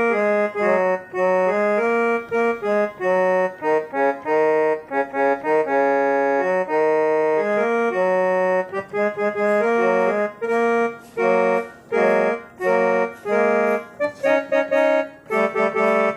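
Casio SA-47 electronic keyboard playing its harmonium tone: a melody of held, reedy notes over lower notes, played in a steady succession with short breaks between phrases.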